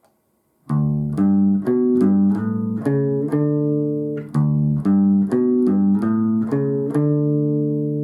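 Electric bass guitar played through an Ampeg BA V2 series bass combo amp. After a brief silence it plays two runs of quick single plucked notes with a short break between them, and the last note is held and left to ring.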